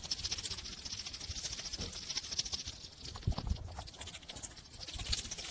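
A hedgehog snuffling: a quiet, quick run of small ticks and puffs, with a few soft low thumps.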